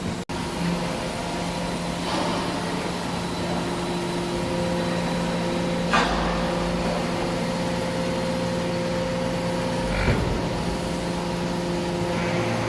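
Hydraulic scrap metal baler running: a steady hum from its electric motor and hydraulic pump, broken by a sharp metal clank about six seconds in and another about ten seconds in, each followed by a low rumble.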